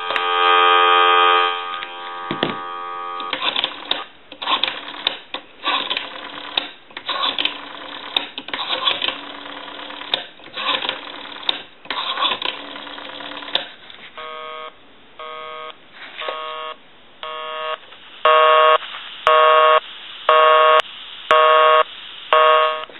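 Western Electric 500 rotary telephone's amplified handset: a brief dial tone, then the clicks of the rotary dial for about twelve seconds, then a busy signal, a tone pulsing on and off about once a second that grows much louder for the last five seconds. The busy signal shows the dialled line is engaged.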